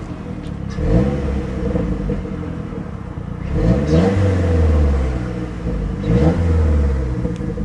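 Mazdaspeed3's turbocharged 2.3-litre four-cylinder revved three times from idle, each rev rising in pitch, held briefly and dropping back. It is running smoothly on freshly installed spark plugs.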